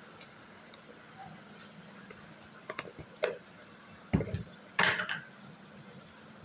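A few scattered clinks and knocks of kitchen utensils against a metal frying pan, with a short, louder rattle about five seconds in.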